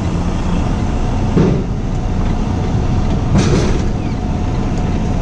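Semi-truck's diesel engine idling steadily with a low rumble. Two short, louder noises break in over it, about two seconds apart.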